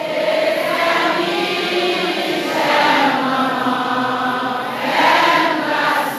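A large crowd of worshippers singing together, many voices blending on long held notes.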